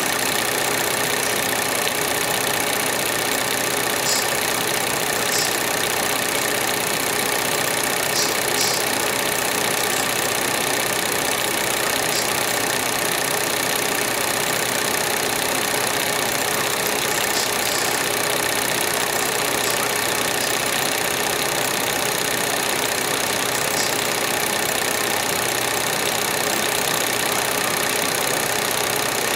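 A steady mechanical hum with hiss, holding several fixed tones and never changing in pitch or level, with a few faint ticks.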